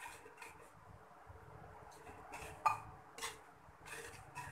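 Steel spoon stirring thick spinach gravy in a metal pot, with faint scrapes and a scattering of light clicks against the pot, the sharpest a little under three seconds in.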